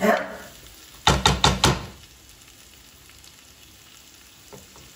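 Cherry tomatoes and onion sizzling in a frying pan while a wooden spoon stirs them. The spoon scrapes at the start, then knocks against the pan about five times in quick succession about a second in, leaving a soft sizzle.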